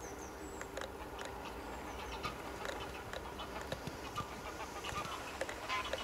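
Waterbirds calling: many short, scattered calls over a steady background, a little busier near the end.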